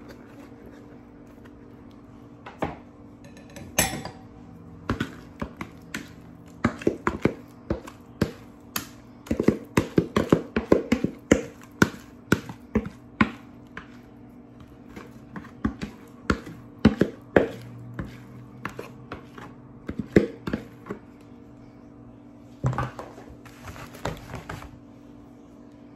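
Cornbread batter being scraped and knocked out of a plastic mixing bowl into a disposable foil pan: a long run of irregular clicks and knocks, thickest in the middle, over a steady low hum.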